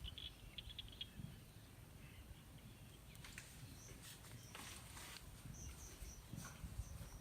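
Faint outdoor ambience: a few short, high chirps in the first second, soft rustling in the middle, and a run of brief high peeps near the end, over a low wind rumble.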